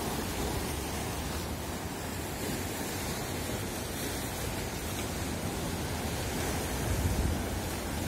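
Rough sea churning and foaming: a steady rush of waves and surf, swelling a little about seven seconds in.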